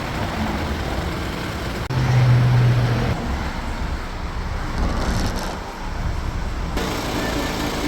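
A BMW 528i's engine idling with a steady low rumble. About two seconds in, a louder steady low hum joins for roughly a second.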